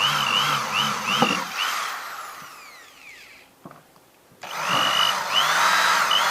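Cheap 10 mm, 350 W electric hand drill running with its speed wavering up and down. About a second and a half in it is let go and winds down to near quiet, with a click. About four and a half seconds in it starts again and runs back up to speed.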